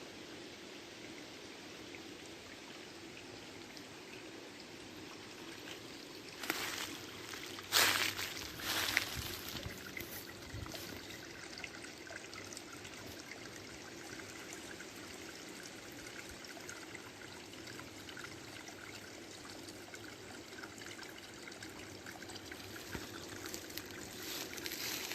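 Shallow forest creek trickling over rocks, a steady gentle water sound. A few short, louder noises break in between about six and nine seconds in.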